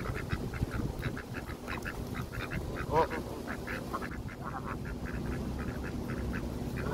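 Canada geese and ducks calling: a steady run of short calls, three or four a second, with one louder call about three seconds in.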